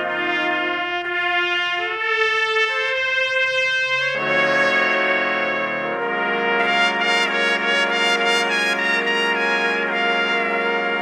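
Ensemble of eight trumpets playing a slow ballad in close harmony: sustained chords that change every second or two, with a fuller, lower-voiced chord coming in about four seconds in.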